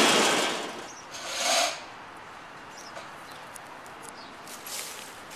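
A fluorescent-bulb crusher's grinding noise dies away within the first second. A brief burst of noise follows about a second and a half in, then faint scattered clicks and ticks.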